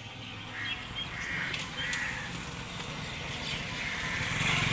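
A few short bird calls, crow-like caws, over a low steady rumble.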